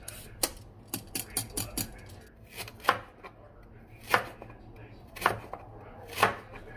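Kitchen knife slicing a peeled carrot into rounds on a wooden cutting board. A quick run of light taps comes first, then firmer chops about once a second.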